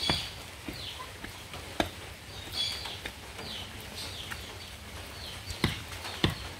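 Digging bar thudding into wet, muddy soil, about five irregular strikes while a post hole is dug. Small birds chirp in the background.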